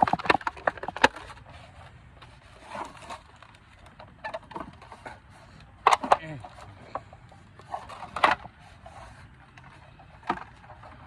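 Donut packaging being opened by hand: a quick run of clicks and crinkles in the first second, then scattered rustling, with two sharper crackles about six and eight seconds in.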